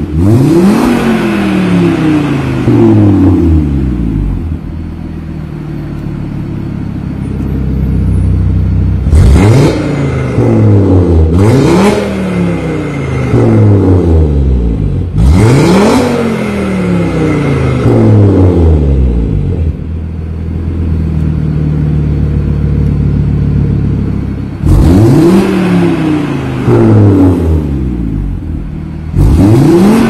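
Audi RS3 Sportback 8V's turbocharged five-cylinder engine revved while stationary, through an ARMYTRIX cat-back valvetronic exhaust. About six sharp blips, each climbing fast and falling slowly back to idle, with idling in between.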